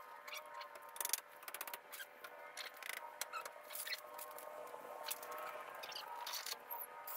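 Light clicks and rattles of a steel tape measure being pulled out and let back in while checking a wooden frame for square, including a quick run of ticks as the blade retracts. A steady hum sits underneath.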